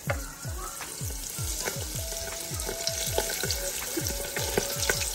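Hot oil in an electric deep fryer sizzling and crackling around a flour-coated chicken piece. The sizzle flares up sharply as it begins and then holds steady. A low thump repeats about three times a second underneath.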